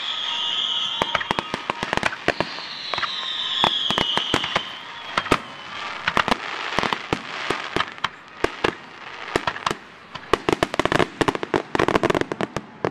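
Aerial fireworks display: rapid bangs and pops of shells bursting, with two falling whistles in the first half and a dense run of crackling pops near the end.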